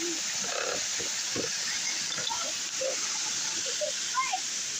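Steady rush of flowing water, with short scattered squeaky sounds over it that bend in pitch.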